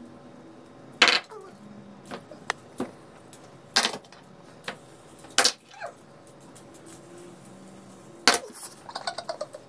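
Scattered sharp plastic clicks and knocks, about nine spread through the stretch, from light-up fidget spinners being handled and flicked, with a quick run of clicks near the end.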